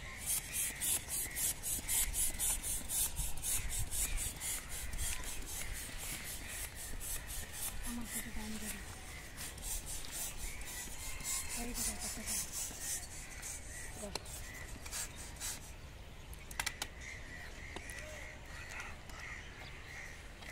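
Hand-held plastic balloon pumps inflating long rocket balloons, with a puff of air on each quick, even stroke. The pumping stops about two-thirds of the way through.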